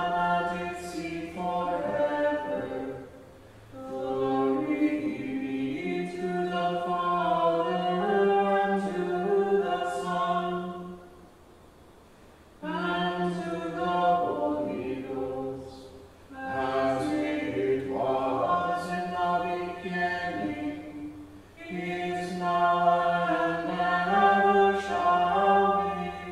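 Church choir chanting unaccompanied in phrases a few seconds long, with brief pauses between them.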